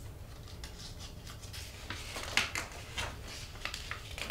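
Quiet room tone with a steady low hum, broken by scattered faint clicks and rubs of small handling noises.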